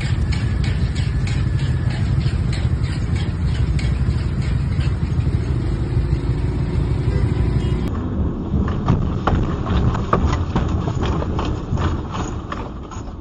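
Heavy low rumble of a moving car, heard from inside, with rapid repeated clattering knocks. About eight seconds in it changes to a thinner rumble with scattered knocks.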